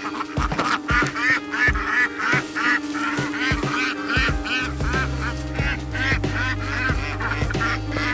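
Background music with a steady beat and a repeated high melody; a low bass line comes in about halfway through.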